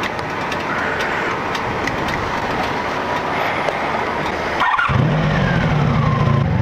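Honda Magna 700 V4 motorcycle engine: a rough, noisy stretch, then near the end a brief drop followed by the engine running at a steady idle. It is only just running on a failing aftermarket electric fuel pump that keeps cutting out and then pumping too fast.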